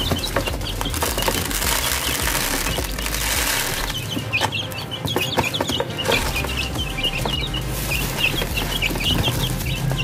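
A group of young chickens cheeping over and over in short high chirps as they crowd a feed dish, with scattered small clicks.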